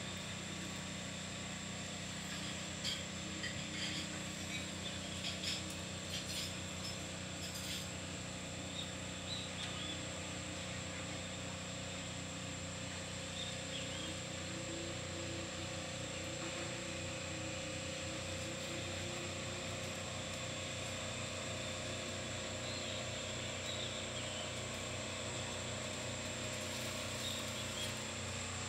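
A steady low mechanical hum, with a few light clicks and taps between about three and eight seconds in.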